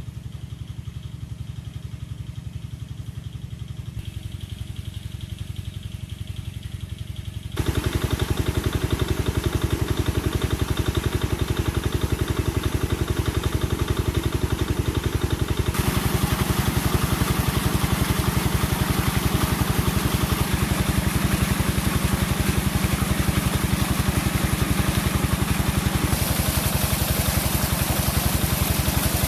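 A small engine running steadily with a fast, even pulse. It gets abruptly louder about seven seconds in and changes tone again twice later.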